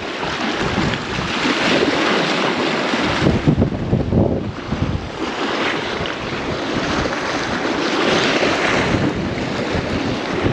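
Strong gale wind buffeting the microphone in gusts, with sea surf washing against the shore behind it.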